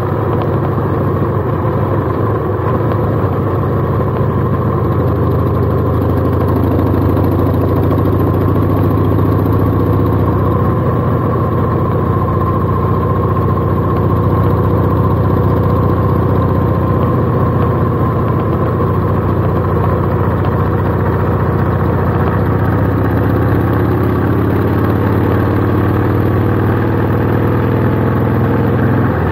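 Harley-Davidson cruiser's V-twin engine running steadily at road speed, heard from the handlebars while riding.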